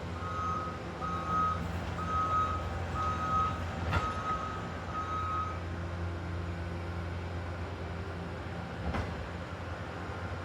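A heavy diesel machine's backup alarm beeps about six times, roughly one beep every second, then stops about halfway through, while the engine keeps running steadily. A couple of short knocks sound, one mid-way and one near the end.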